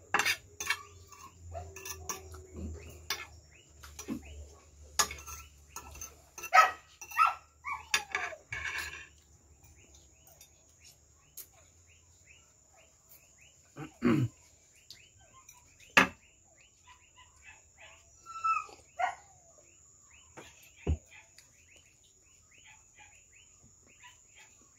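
A metal fork scraping and clicking against a plate for about the first nine seconds while food is cut. After that, mostly a faint, steady chirping of insects with a few single knocks.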